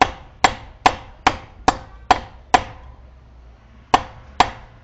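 Hammer blows on a steel leaf-spring clamp clip, bending it closed. Seven quick strikes about two a second, a pause, then two more, each with a short metallic ring.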